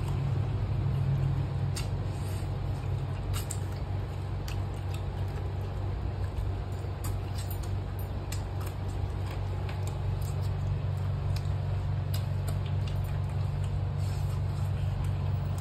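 People eating curry and rice by hand, with scattered small smacks and clicks of chewing, over a steady low hum.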